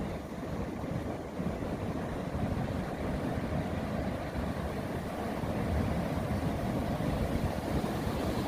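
Wind rumbling on the microphone over ocean surf: a steady low rumble that swells and eases, with no distinct events.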